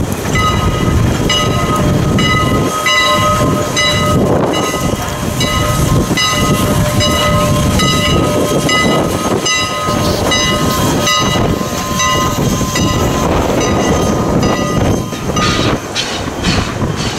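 Steam locomotive No. 89, a 2-6-0 Mogul, moving with its bell ringing in evenly repeated strokes over the chuff of its exhaust. The bell stops about three quarters of the way through, leaving the exhaust beats.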